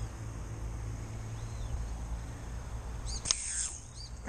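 Small birds chirping in short arching calls over a low steady rumble of wind on the microphone, with one sharp snap about three seconds in.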